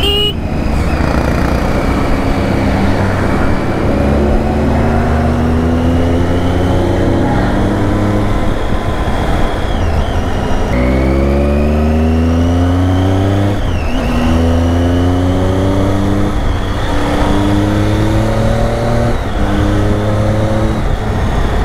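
Triumph Tiger 800's three-cylinder engine through an Arrow exhaust, heard from the rider's seat while riding. The revs climb steadily and fall back several times as the rider shifts up, with a rush of wind over it.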